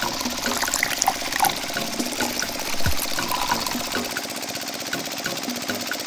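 Small electric motor of a miniature machine running steadily with a regular ticking about three times a second, while liquid trickles from its spout into a plastic bucket.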